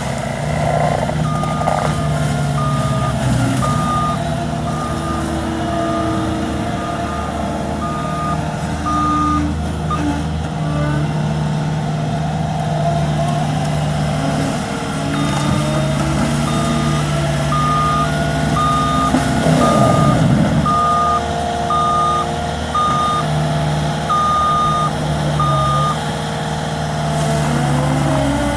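Caterpillar skid steer loader's diesel engine running steadily while its backup alarm beeps about three times every two seconds in two spells as it reverses, with a brief surge of engine load about two-thirds of the way through.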